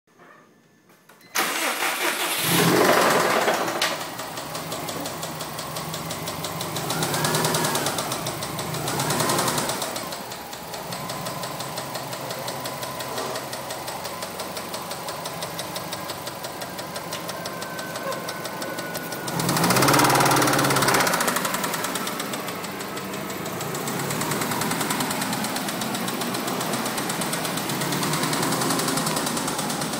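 A 2004 Subaru WRX's 2.0-litre turbocharged EJ20 flat-four starts about a second and a half in. It is blipped a few times, around 7, 9 and 20 seconds, and settles to idle between the blips. A fast, steady knocking runs through it throughout: the owner's rod knock, a worn connecting-rod bearing.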